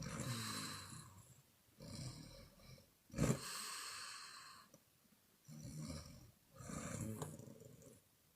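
Woman snoring: five snoring breaths with short pauses between them, rumbling snores alongside breathy exhales blown through the mouth. A sharp snort comes about three seconds in.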